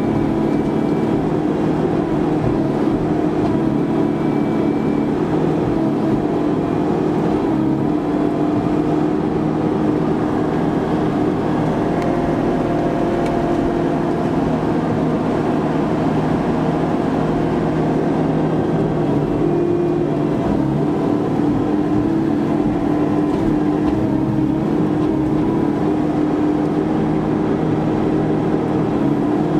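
Vimek 404 T3 small forest harvester's engine and hydraulics running steadily under load, heard from inside the cab, while the crane and harvester head work a felled stem.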